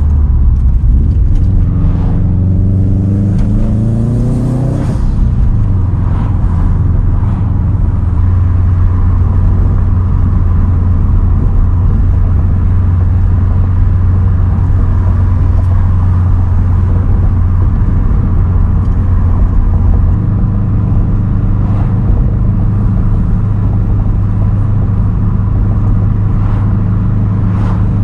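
2010 Subaru WRX STI's turbocharged 2.5-litre flat-four, breathing through a Tomei titanium single straight-pipe exhaust. It revs up under acceleration for the first few seconds, then drones steadily at cruise, and settles to a lower steady note about twenty seconds in.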